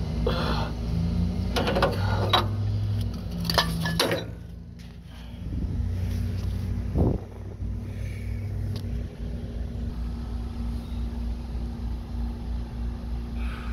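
Hands handling wiring and metal fuel-system fittings: a few sharp clicks and knocks in the first four seconds and one more around the middle, over a steady low hum.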